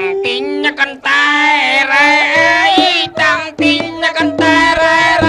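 Singing over music: a sung melody with held, wavering notes, with brief pauses between phrases.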